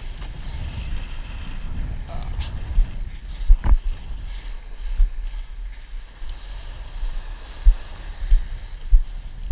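Wind buffeting the microphone in irregular low thumps, over water rushing and splashing under a windsurf board sailing through shallow surf. One sharp knock comes a little over three and a half seconds in.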